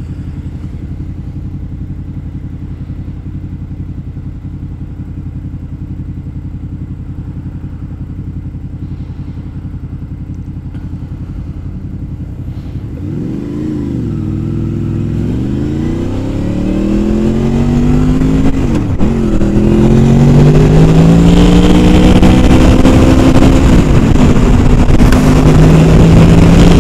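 Honda VFR800 Interceptor's VTEC V4 engine running steadily at low revs. About 13 seconds in it pulls away hard, revving up and shifting up through the gears, with each shift a dip in pitch. Wind rushes louder as speed builds.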